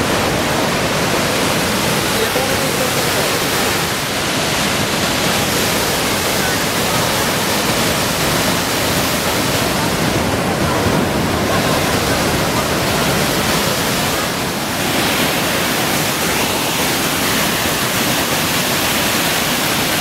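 Large river waterfall on the Narmada, a loud steady rush of falling, churning water.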